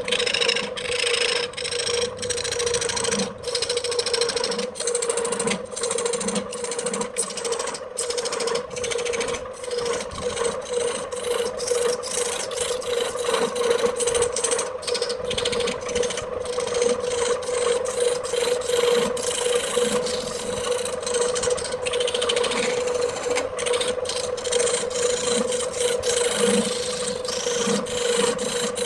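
Wood lathe running with a steady hum while a turning tool or abrasive scrapes against the spinning wood-and-epoxy blank in uneven strokes. The scraping stops abruptly at the very end.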